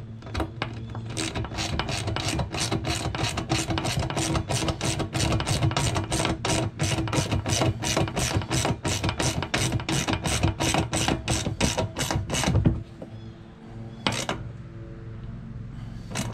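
Hand socket ratchet wrench clicking in a steady rhythm, about three clicks a second, as a bolt is run down on the cart's steel frame. The clicking stops about 13 seconds in, followed by two single clicks.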